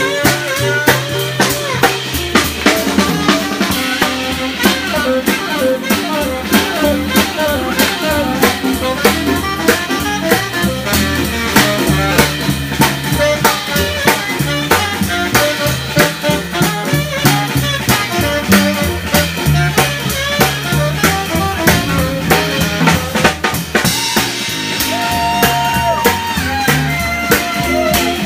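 Live small jazz band swinging: drum kit with cymbals and rimshots loudest and close, upright bass stepping along underneath, saxophone playing the melody lines on top. Near the end the horns hold longer notes.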